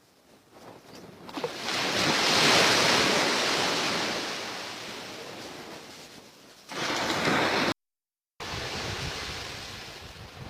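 Sea surf washing onto the shore: a wave swells in about two seconds in and slowly drains away, followed by more surf after a brief dropout in the sound.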